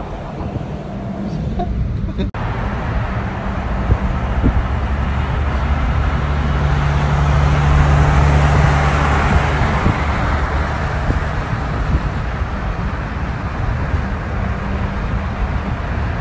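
Road noise of a moving car: a steady low engine and tyre hum under rushing air noise, which swells louder around the middle. The sound cuts out for an instant about two seconds in.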